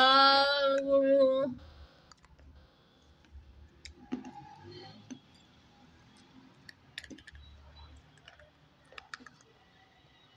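A held vocal note lasting about a second and a half, then scattered faint clicks and crunches of dry terracotta clay shards being bitten and chewed.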